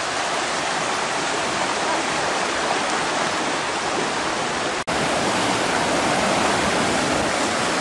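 Floodwater rushing steadily, a continuous loud wash of water noise. About five seconds in, the recording drops out for a split second.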